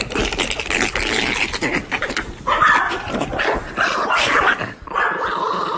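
A dog vocalizing, with a higher, wavering whine-like tone coming in about halfway through.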